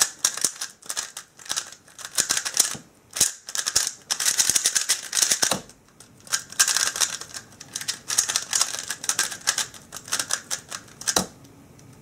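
GAN 356 Air UM 3x3 speedcube being turned at speed: rapid plastic clacking as the layers snap around, in quick flurries with brief pauses. There is one sharper knock near the end.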